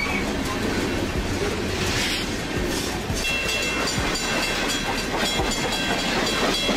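Freight train of covered hopper cars rolling past, a steady rumble of wheels on rail with repeated sharp clicks as the wheels cross rail joints.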